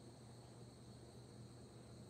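Near silence: a faint steady low hum with a faint, unchanging high-pitched whine above it.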